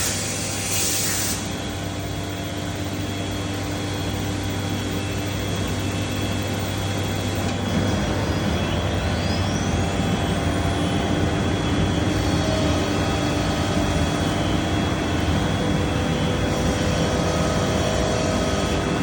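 Biesse Rover K CNC router running: a steady mechanical noise with a low hum and a high whine. A short hiss stops about a second in, and a faint whine rises in pitch about nine seconds in.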